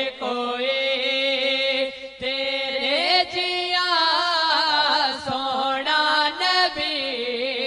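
Two men's voices singing a naat in long held, ornamented notes with melismatic turns.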